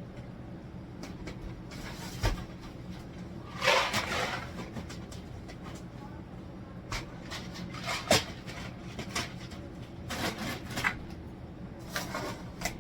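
Household handling noises: scattered knocks and clicks like cupboard or fridge doors and items being set down, with a brief rustle about four seconds in, over a steady low hum.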